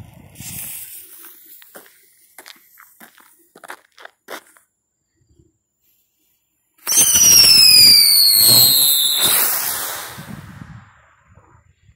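Firehawk Ladybug aerial spinner firework lit: a few faint crackles from the burning fuse, then about seven seconds in it launches with a loud whistling shriek that falls in pitch over a rushing hiss of sparks, fading away over the next few seconds as it spins upward.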